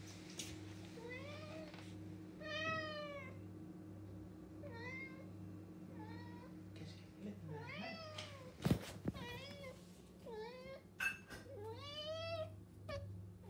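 Domestic tabby-and-white cat meowing repeatedly, about ten meows each rising then falling in pitch, demanding its breakfast. A steady low hum runs underneath, with a couple of sharp clicks.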